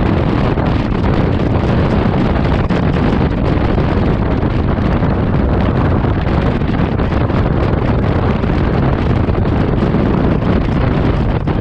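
Wind rushing over an action camera's microphone while riding a Honda Forza 125 scooter, a steady, loud noise with the scooter's engine running underneath.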